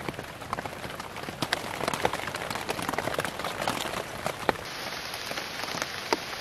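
Steady rain falling, with many sharp ticks of single drops landing close by. The sound of the rain changes abruptly a little past two-thirds of the way through.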